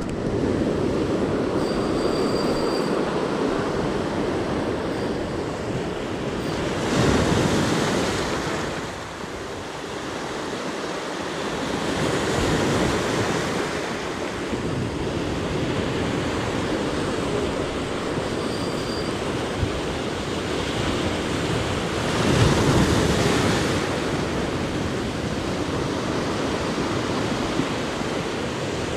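Sea surf washing steadily on the shore, with two waves breaking louder, one about a quarter of the way in and one about three quarters through.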